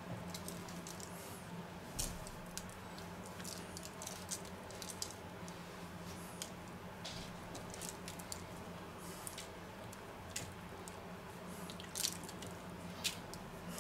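Faint, scattered ticks and rustles of ground almonds being sprinkled by hand onto cookies on a baking-paper-lined tray, over a steady low hum.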